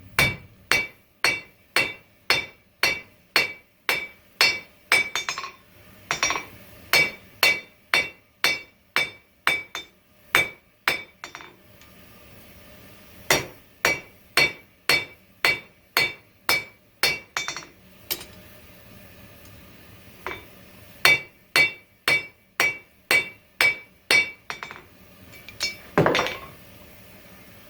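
Hand hammer striking hot 5160 coil-spring steel on an anvil, about two ringing blows a second in runs with two short pauses, drawing the bar down to an even thickness. A brief burst of rougher noise near the end.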